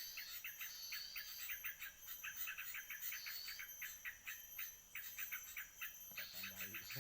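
Birds chirping in rapid, repeated short notes, with higher whistled phrases between them, over a steady high insect buzz. A brief low-pitched sound comes in near the end.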